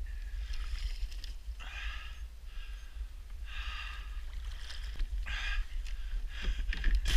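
A person breathing hard in a series of loud exhalations, one every second or two, over a low wind rumble on the microphone.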